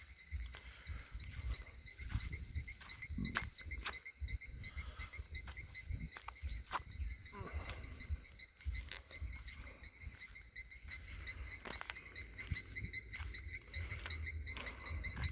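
A chorus of frogs calling, heard as a steady, rapidly pulsing high-pitched trill that runs on without a break. Scattered clicks and low thumps from footsteps of someone walking sound over it.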